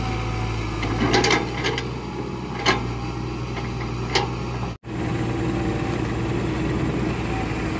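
Hitachi Zaxis 120 excavator's diesel engine running steadily, with a handful of sharp cracks and knocks of wood as its grapple works through tree stumps and branches. The sound cuts out for an instant just past halfway, then the engine carries on.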